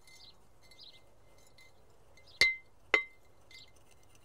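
Two sharp glassy clinks about half a second apart, from a container knocking against a small glass tank as wet sand is tipped in. Faint birdsong chirps carry on behind.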